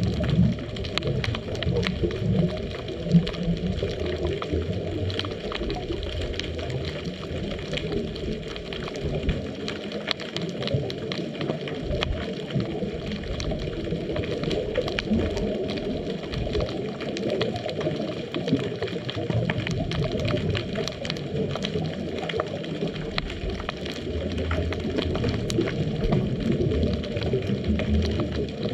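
Underwater ambience heard through a GoPro housing: a muffled, steady low rumble of moving water with constant fine crackling throughout.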